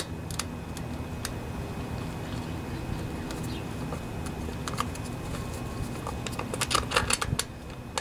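Small clicks and taps as a plastic air-filter base is seated and its mounting nuts are threaded on by hand. A quick run of clicks comes near the end, over a steady low background hum.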